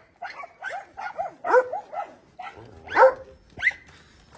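Dogs barking and yipping in a quick run of short, high calls that rise and fall in pitch, the loudest about one and a half and three seconds in.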